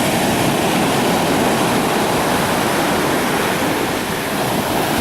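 Pacific Ocean surf: a loud, steady rush of breaking waves.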